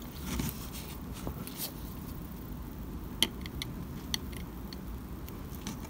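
Quiet handling of a thin plastic square rod against a steel ruler on a cutting mat: a few faint, sharp clicks and taps, the clearest about three seconds in, over low room noise.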